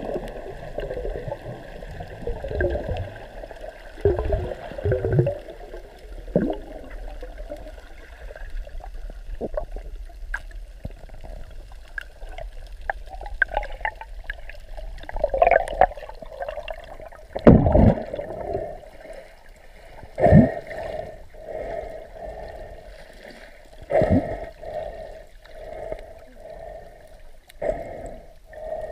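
Muffled water sloshing and bubbling around an underwater camera as the swimmer moves through the water, with irregular louder gushes and thumps.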